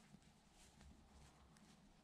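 Near silence, with a few faint clicks and rustles from hands tying a loop in monofilament fishing line.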